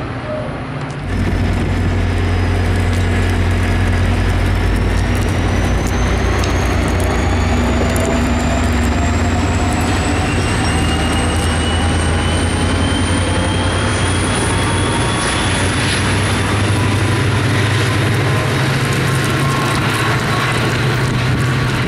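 Diesel-hauled NJ Transit train pulling away: a steady low engine rumble with a whine that rises slowly in pitch as it gathers speed. It starts abruptly about a second in.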